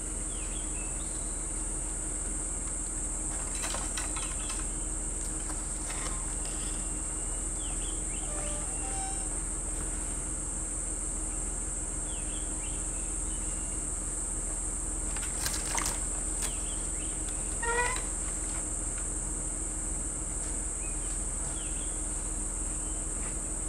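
Steady high-pitched insect chorus, with a few short chirps and brief knocks scattered through it.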